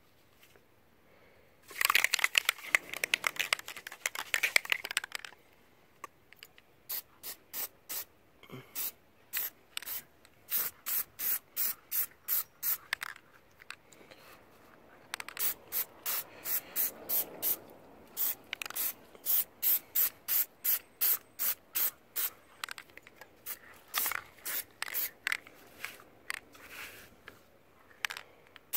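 Aerosol can of Plasti Dip rubber coating sprayed onto a metal wiper arm in short, quick puffs, about two or three a second, with a few brief pauses. There is a longer, louder stretch of noise a couple of seconds in.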